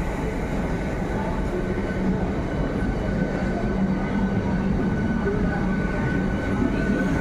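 A train running: a steady rumble with a steady hum over it.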